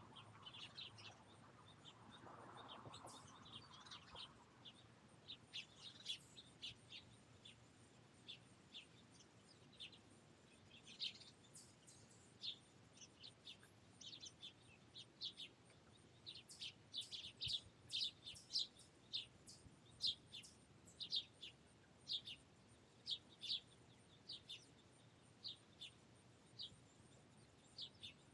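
Finches chirping: many short, high chirps, scattered at first and coming faster and louder over the second half.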